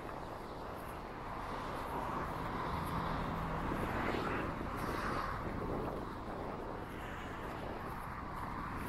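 Outdoor street ambience: a steady rush of traffic noise that swells around the middle and fades again.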